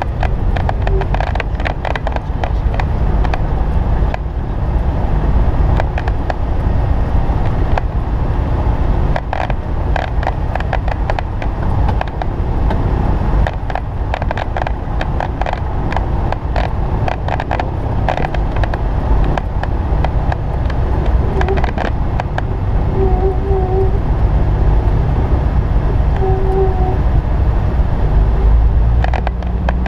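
Light piston aircraft heard from inside the cockpit during its runway roll: a loud, steady engine-and-airflow rumble with frequent rattling clicks, and brief faint beeps twice toward the end.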